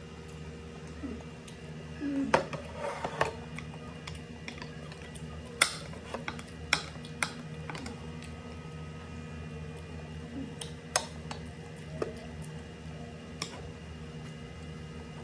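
Metal spoon and wooden chopsticks clinking and scraping against ceramic bowls while eating: a handful of sharp, separate clicks, over a steady low hum in the room.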